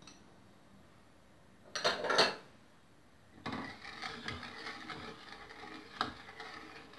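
A brief clatter about two seconds in, then a slotted spoon stirring sugar water in an enamel pot, scraping along the bottom with small knocks while the sugar has not yet dissolved.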